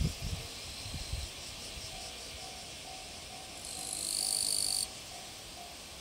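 A Japanese railway level-crossing alarm starts ringing about two seconds in, a ding repeating about twice a second, over a steady hiss of insects. Near the middle, a louder high insect buzz swells for about a second and cuts off suddenly.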